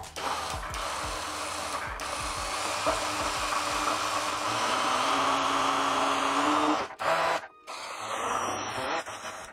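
Corded immersion (stick) blender running in a tall plastic beaker, puréeing a thin liquid sauce: a steady motor whir with churning liquid, its pitch creeping up before it cuts out about seven seconds in, followed by a short second burst.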